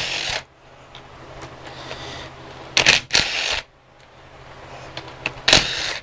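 A ratchet wrench loosening the 10 mm bolts on an engine's valve cover, clicking. There are short louder bursts near the start, about three seconds in and near the end, with quieter clicking between them.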